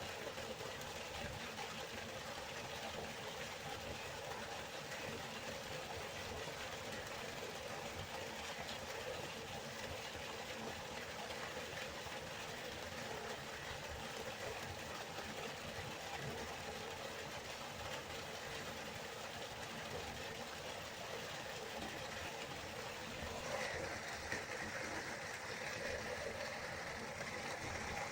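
River water flowing in a steady rush. Near the end the sound turns a little brighter and louder.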